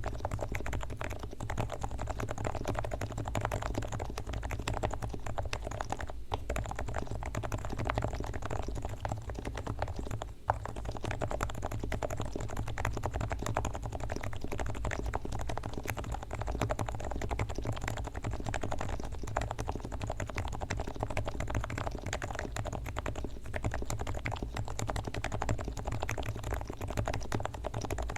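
Rapid, continuous typing on a Leopold FC660C keyboard with silent 45 g electrostatic capacitive switches, fully lubed with Krytox, with a steady low hum underneath.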